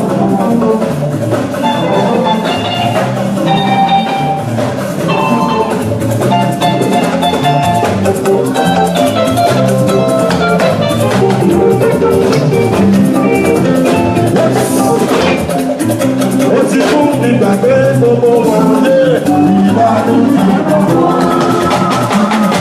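Live band music: drums and percussion keep a steady beat while a melodic instrument plays runs of bright notes over it.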